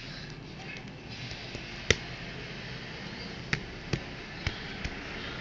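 Cardboard jigsaw puzzle pieces being handled: a sharp tap about two seconds in, then four lighter taps over the next few seconds, as pieces are picked up and set down on a hard surface.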